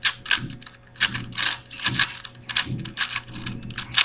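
Plastic clicking and clacking of a 4x4x4 Rubik's cube being turned by hand, a quick irregular run of sharp clicks, roughly three or four a second.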